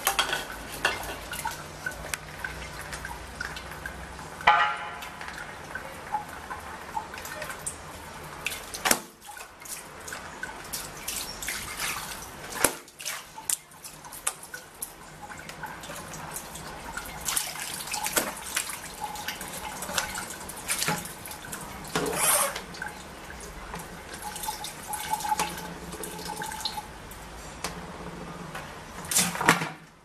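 Water splashing and dripping, broken by many small knocks and clinks and a few louder clatters, as a parrot plays in its water bowl and tips it over.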